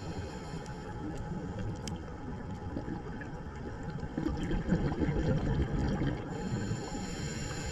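Underwater ambience picked up by a dive camera: a steady low rush and gurgle of water, swelling louder about four seconds in.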